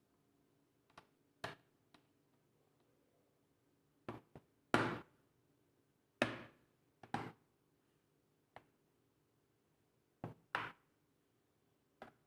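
Irregular sharp clicks and knocks from a laptop's plastic case and a screwdriver being handled while the back panel is screwed down, about a dozen in all, the loudest two near the middle.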